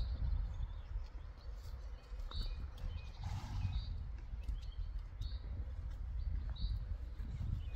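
A pony foal's hooves stepping on a packed-dirt yard over a steady low rumble, with a short high chirp repeating about every second or so. A brief breathy noise comes about three seconds in.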